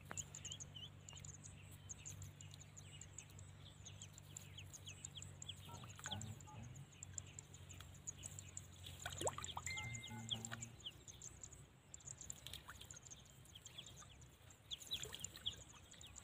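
Duckling peeping over and over in short high notes, with a steady high buzz underneath.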